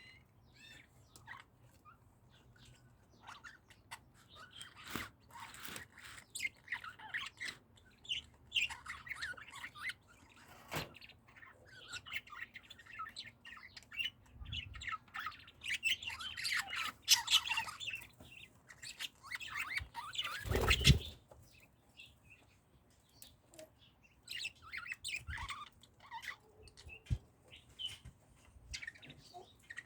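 Small pet parrots chirping and chattering in quick, scratchy calls, busiest in the middle, with one loud thump about two-thirds of the way through.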